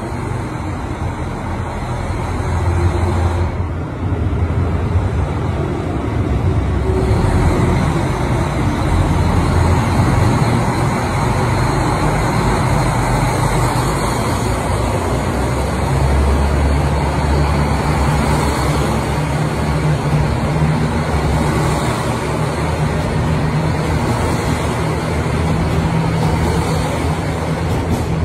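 KiHa 261 series diesel multiple unit pulling out and rolling past, its diesel engines running under power with a steady low note that grows stronger about halfway through, over the rumble of the carriages on the rails.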